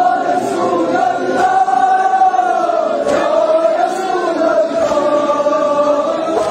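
Large crowd of male mourners chanting a lament in unison, one sustained line that rises and falls slowly, with a few sharp slaps of chest-beating (matam).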